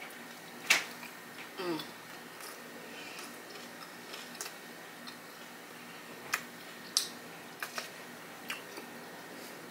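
Close-miked chewing of a mouthful of soft sub sandwich: sparse wet mouth clicks and smacks, the sharpest about a second in, with a short hum of enjoyment shortly after and a few more clicks in the last few seconds.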